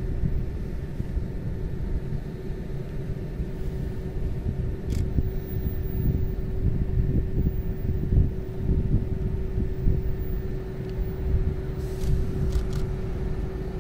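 Distant diesel locomotive hauling a car shuttle train approaching, heard as a steady drone under a gusty low rumble of wind on the microphone.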